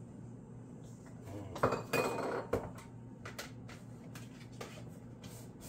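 Kitchen dishes and cutlery clinking and knocking, with a denser clatter about two seconds in and scattered lighter clicks after.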